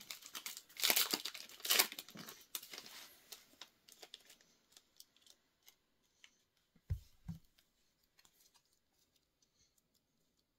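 A foil trading-card booster pack wrapper being torn open and crinkled for about three seconds. Faint scattered rustles follow, with two soft thumps about seven seconds in.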